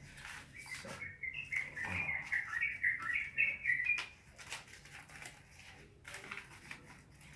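A small bird chirping in a quick run of short notes for about three seconds, from soon after the start. Softer paper rustling of banknotes being handled and counted runs underneath.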